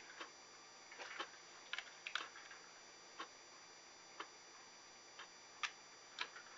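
Faint ticking about once a second, like a clock, with a few extra light plastic clicks from a toy snowmobile being handled.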